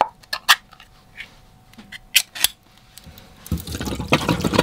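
Ring-pull tin being opened: a few sharp metallic clicks and snaps as the tab lifts and the lid tears back. About three and a half seconds in, the tin's liquid pours out and splashes through a strainer into a stainless steel sink.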